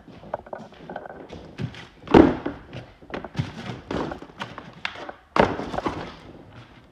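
A run of knocks and clatters from things being handled and set down, with two heavier thuds, one about two seconds in and one a little past five seconds.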